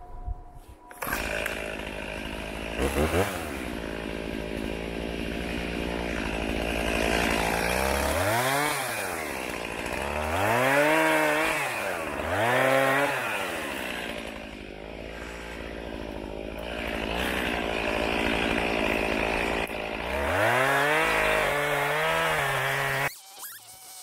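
Stihl two-stroke chainsaw running and cutting brush and saplings low in the snow. The engine swings up and down in several long revs as it bites, then cuts off abruptly near the end.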